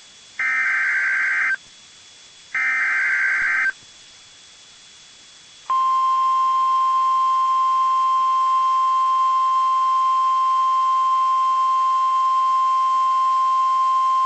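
NOAA Weather Radio alert signals: two rasping SAME header data bursts about a second each, then, about six seconds in, the steady 1050 Hz warning alarm tone held for about nine seconds. Together they announce that a new warning broadcast follows.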